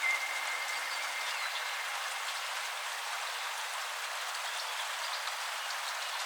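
Steady rain ambience: an even patter and hiss with no low rumble. A faint steady high tone fades out about two seconds in.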